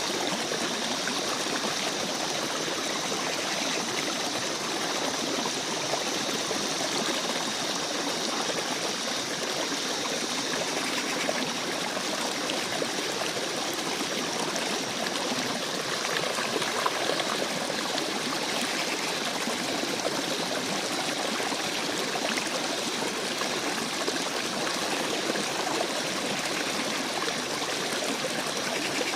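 Stream water running steadily, an even splashing rush, with a faint steady high-pitched tone above it.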